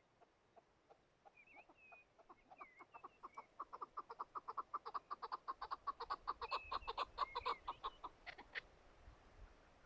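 Chukar partridge calling: a rapid run of clucking notes, about five a second, that builds up, grows louder and stops near the end. A few thin whistled notes come earlier.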